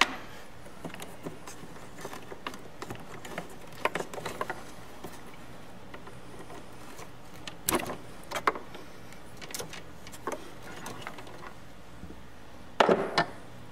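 Scattered small clicks, taps and rustles of hands handling insulated spade terminals, wires and hoses, with louder brief clatters about eight seconds in and again near the end.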